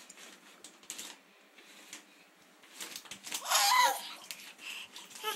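Baby giving one short squealing laugh about three and a half seconds in, with scattered light taps around it.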